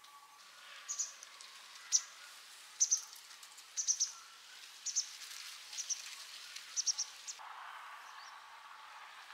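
Short, high chirps from a small animal, repeating about once a second, singly or in quick twos and threes, over a faint steady hiss. Near the end a louder rushing noise takes over.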